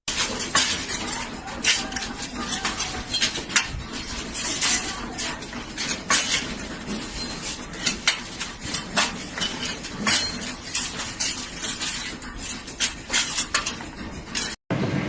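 Rapid, irregular metallic clinking and clattering, like hard metal pieces knocking against each other, over a steady mechanical noise.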